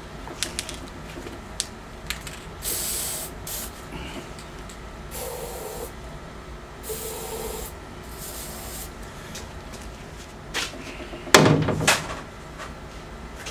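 A few short hisses of Tri-Flow aerosol lubricant sprayed into a seized Johnson 15 hp outboard's powerhead to free it up, followed near the end by a loud knock.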